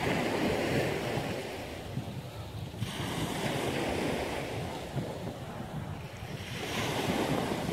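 Small waves washing onto a pebble beach, the wash swelling at the start and again near the end, with wind rumbling on the microphone.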